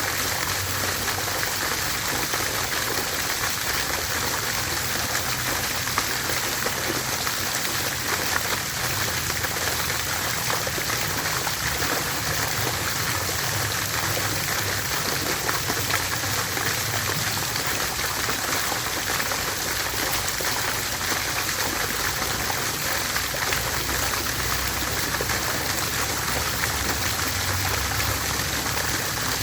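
Water fountain splashing steadily, a continuous patter of falling water.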